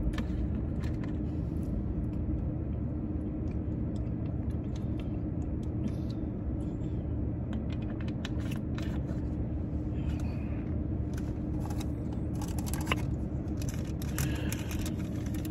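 Steady low hum of a car idling, heard from inside the cabin, with scattered small clicks and crinkles from handling a plastic water bottle, and paper rustling near the end.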